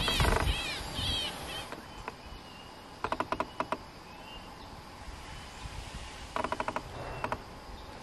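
Leaf whistle blown as a bird lure, giving two short trains of rapid buzzy pulses, one about three seconds in and one about six and a half seconds in. Faint high whistled bird notes sound in between.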